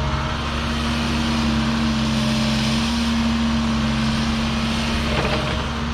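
Diesel engine of a Cat 306 CR mini excavator running steadily, pulling harder for a few seconds as the hydraulics work, with a short rattle near the end.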